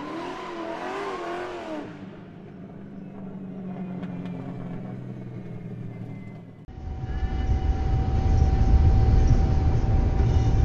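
Car engine revving with a wavering pitch, then holding a steady low note. About seven seconds in it cuts abruptly to the louder low rumble of a car driving, heard from inside the car, with a steady whine over it.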